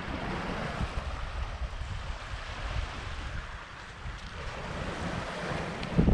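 Small waves lapping on a shingle shore, with wind buffeting the microphone as an uneven low rumble; the wind noise gets louder about six seconds in.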